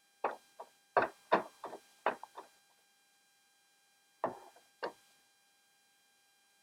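Small, sharp clicks and taps from cassette deck mechanism parts and tools being handled during reassembly: a quick run of about ten, then two more a few seconds later.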